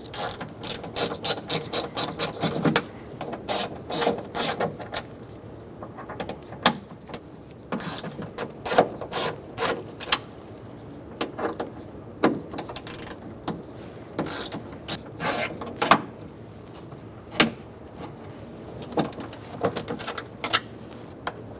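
Ratchet with a T30 Torx bit clicking in quick runs with short pauses as the door lock actuator's bolts are backed out.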